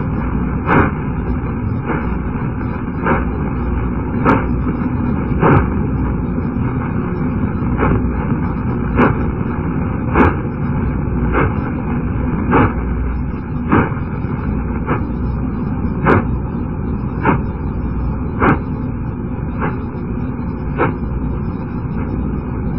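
Radio pulses of pulsar CP1133 picked up at 111.5 MHz by the Arecibo radio telescope and played as audio: a sharp click about every 1.2 seconds over a steady static hiss.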